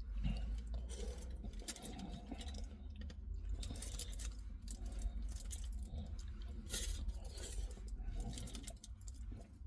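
Close eating sounds of a doner kebab: irregular small clicks, crackles and rustles of chewing and of handling the food and its wrapper.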